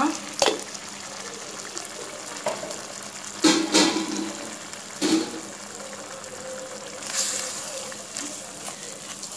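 Thin coconut-cashew paste and rinse water being poured from a mixer jar into a simmering gravy in a steel pot: liquid splashing over a steady cooking hiss, with a few brief louder moments.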